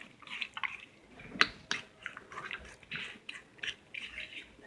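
Jelly slime being mixed and squished with lotion: irregular wet squelches and small clicks, with one sharper click about a second and a half in.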